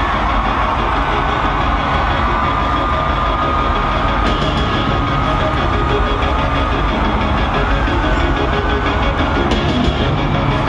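Large arena crowd cheering and screaming loudly, over a steady low rumble from the PA.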